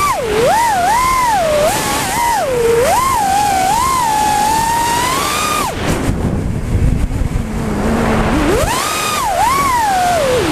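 FPV quadcopter's brushless motors whining, the pitch swooping up and down quickly with the throttle. About six seconds in the whine drops off sharply to a low hum and rushing wind as the throttle is cut while the quad rolls over. A couple of seconds later it climbs back up.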